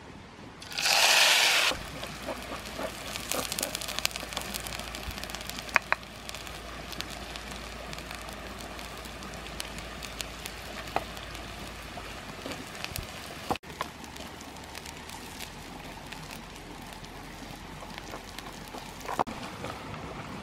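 Chopped chillies and paste hitting hot oil in a wok with a loud sizzle about a second in, then frying steadily with crackling and sharp pops as they are stirred over a wood fire.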